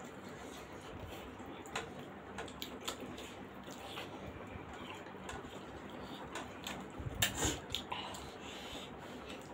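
Close-miked eating of momos by hand: chewing and short, scattered mouth clicks and smacks, with a louder cluster of smacks about seven seconds in.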